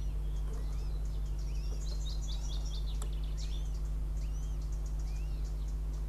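Small birds singing: short arched whistled notes repeated about once a second, with a burst of rapid high chirping about two seconds in, over a steady low electrical hum. A single sharp click comes about three seconds in.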